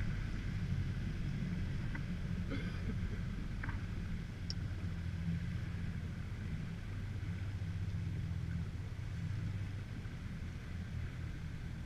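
Low steady hum of a small boat's motor running at slow cruising speed, with a few faint clicks in the first few seconds.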